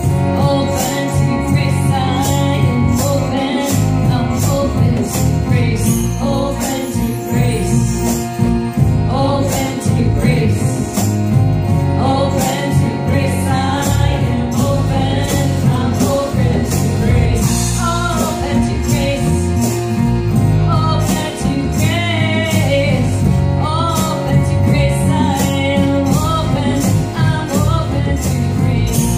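Live kirtan music: a sung devotional chant over a hand drum, bowed strings and a steady percussion beat.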